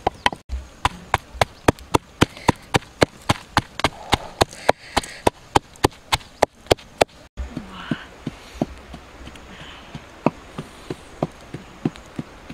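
Wooden pestle pounding chilies, garlic and salt in a wooden mortar: steady thuds about three to four a second. After a break about seven seconds in, the strikes go on softer and less regular.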